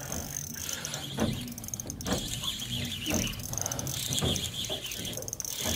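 Spinning reel being cranked to reel in a hooked walleye: a steady high whir from the reel, with a few soft knocks.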